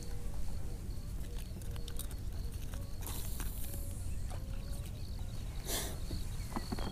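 Light clicks and knocks of a caught largemouth bass being handled and unhooked over the side of a boat, over a steady low rumble, with a short hiss near the end.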